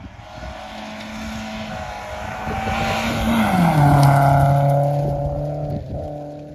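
Red Volvo saloon rally car passing at speed on a gravel road. Its steady engine note drops sharply in pitch as it goes by about three and a half seconds in, with a hiss of gravel and tyres underneath. The sound is loudest just after the pass and then fades as the car moves away.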